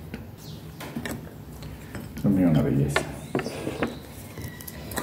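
Fork clicking and scraping on a plate, with a few knocks of dishes on the table. A voice sounds briefly about two seconds in.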